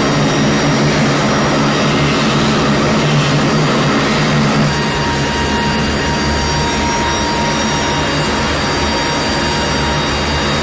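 Lockheed C-130J Super Hercules's Rolls-Royce AE 2100 turboprop engines running on the ground, a loud steady drone with a low propeller hum. A steady whine joins about five seconds in.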